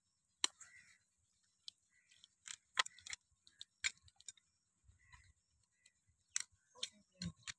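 Long-handled hoof nippers cutting and cracking off a dairy cow's overgrown hoof horn against a wooden block: a dozen or so sharp, irregular clicks and snaps.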